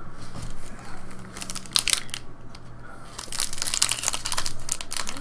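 Shiny foil wrapper of a Bowman baseball card pack crinkling and tearing open in the hands, with a quick run of sharp crackles from about a second and a half in, thickest near the end.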